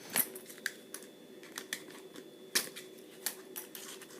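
Scissors cutting through hard plastic blister packaging: a string of sharp clicks and snaps, the loudest about two and a half seconds in.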